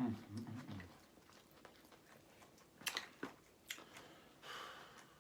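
A person eating seafood-boil food close to the microphone: faint chewing with a few sharp clicks. A short low vocal hum comes at the start.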